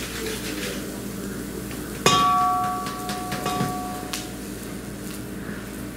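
A single sharp clang of metal kitchenware, ringing with a clear tone that fades over about two seconds, followed by a few light knocks and clicks.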